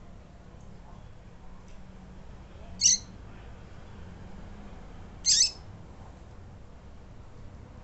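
Female double-collared seedeater (coleiro) calling: two short, high call notes about two and a half seconds apart.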